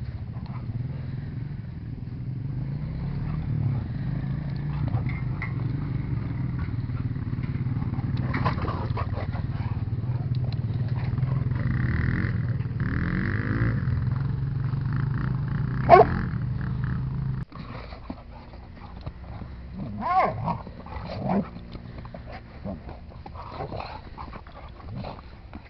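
Two Portuguese Water Dogs play-wrestling, growling, with one loud, sharp high bark about two-thirds of the way in and more short yips a few seconds later. Under them an ATV engine idles with a steady low hum that cuts off suddenly just after the bark.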